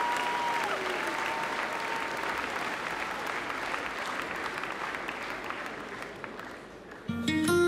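Audience applauding, with a whistle near the start, the clapping slowly dying away. About seven seconds in, the song begins with plucked guitar notes.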